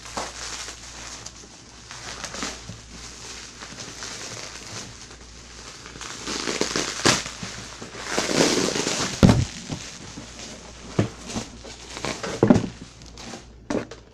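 Cardboard box and plastic packaging being handled while an item is pulled out: crackling and crinkling with scattered sharp knocks, and a louder rustle ending in a heavy thump about nine seconds in.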